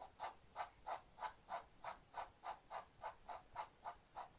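Ink brush scratching on paper in quick, short strokes, about three a second, as hair is hatched in.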